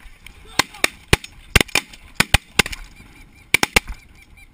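A ragged volley of about a dozen shotgun shots from several hunters firing together, in uneven clusters over about three seconds. Goose calls sound faintly underneath.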